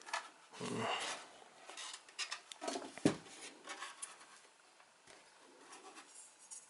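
Handling noise from a ruler and hands on a wooden subwoofer enclosure: scraping and small ticks, with one sharp knock about three seconds in.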